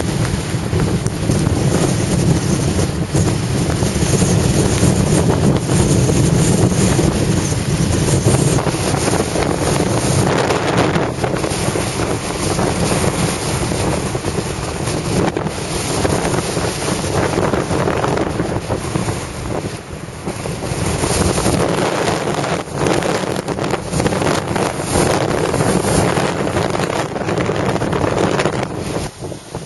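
Strong wind buffeting the microphone in gusts, over the rush of surf raised by the wind.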